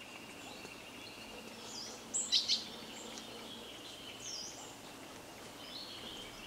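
Quiet outdoor ambience with small birds chirping: a quick cluster of sharp chirps a little over two seconds in, the loudest sound, and a short high call near four seconds, over a faint steady background.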